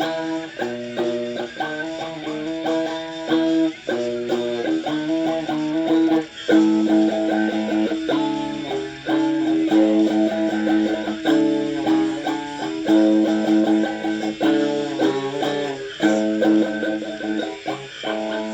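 Guitar music: a guitar playing a steady run of notes and chords.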